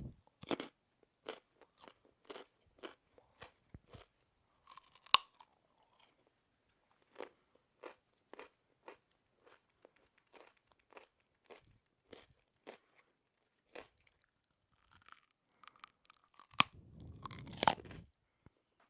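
A person chewing food with a crisp crunch on each bite, in a steady rhythm of about two chews a second. A louder, fuller bout of crunching comes near the end.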